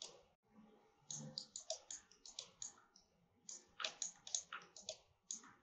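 Faint computer mouse and keyboard clicks: a quick, irregular run of about twenty short, sharp clicks that starts about a second in.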